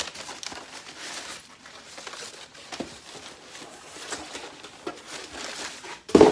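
Crumpled brown packing paper rustling and a cardboard box being handled as a plastic-wrapped hardcover book is pulled out of it. Near the end comes one short, much louder thump.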